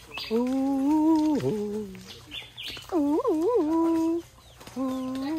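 A man humming a wordless tune close to the microphone: long held notes, some phrases opening with a quick wobble up and down, broken by short pauses.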